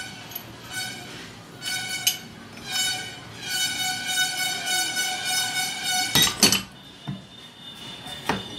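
A high, steady squeal of metal on metal comes in repeated stretches, the longest about two seconds, as a wrench is twisted on a mono shock absorber's tube held in a bench vise. A few sharp metal clanks follow in the last few seconds.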